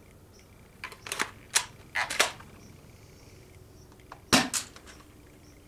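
Sharp plastic clicks and clacks from an airsoft shotgun and its shells being worked by hand, in several short bunches, the loudest about four seconds in.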